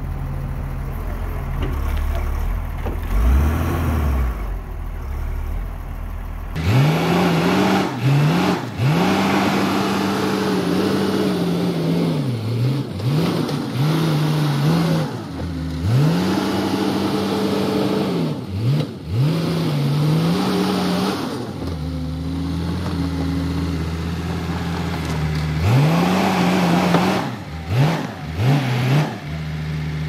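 CASE 1150E crawler dozer's diesel engine pushing out pine stumps. It runs lower and steadier for the first six seconds or so, then works under heavy load, its pitch sagging and recovering again and again as it lugs. Clanks from the steel tracks and blade run through it.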